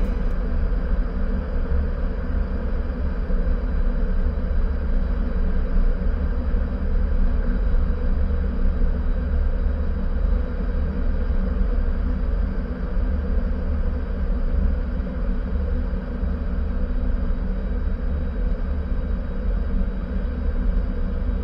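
Steady in-flight cockpit noise of a Cessna Citation CJ4 business jet: a constant deep rumble under an even hiss of airflow and its twin Williams FJ44 turbofan engines.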